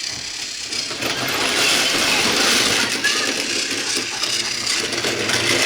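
Battery-powered toy Thomas the Tank Engine train running along its track, a steady mechanical whirring rattle of its small motor and wheels that grows louder about a second in.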